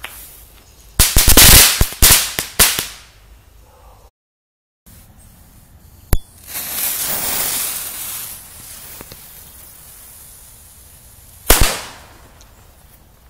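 Several small firecracker bangs in quick succession with some crackle about a second in. Then a sharp click as a fuse is lit, the fuse hissing for about two seconds, and a single loud firecracker bang near the end.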